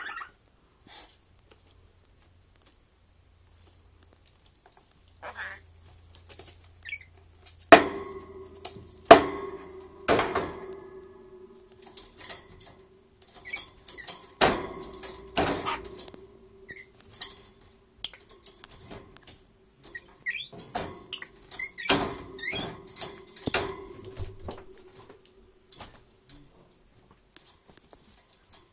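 A lorikeet beating a toy chicken about its cage: irregular sharp knocks and rattles against the metal cage and floor grate, starting after a quiet first several seconds, with a low ringing tone that hangs on after the loudest hits.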